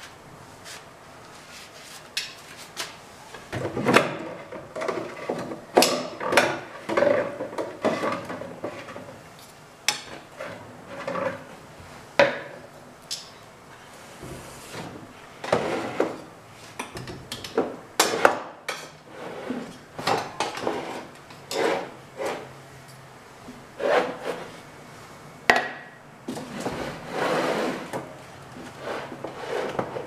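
Storage boxes and kitchen containers being fetched and handled: irregular knocks and clatter, with stretches of rustling.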